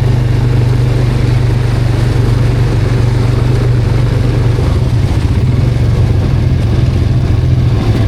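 Quad bike (ATV) engine running steadily with a loud, constant low hum.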